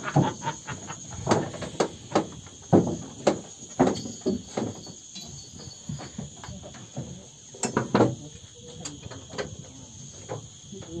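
Insects chirring steadily and high-pitched, with irregular short knocks and taps scattered throughout.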